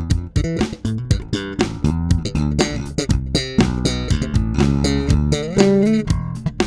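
Skjold electric bass guitar played in a quick run of plucked notes with sharp attacks, one note bent upward near the end.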